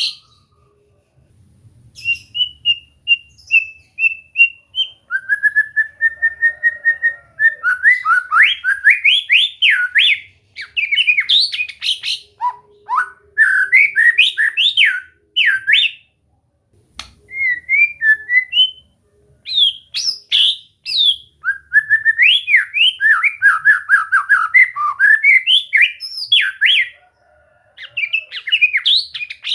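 White-rumped shama singing: loud, varied phrases of quick whistled notes sweeping up and down, some held as a steady repeated note or a slow rising one, with short pauses between song bursts.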